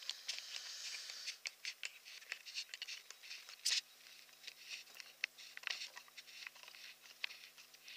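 Handling noise of a camera being taken off its tripod and held by hand: irregular light clicks and rustles, with one loud sharp click about halfway through.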